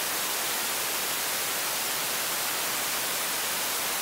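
Steady, even hiss of static with no speech in it: the sermon's audio has dropped out to noise, a fault in the microphone or sound feed.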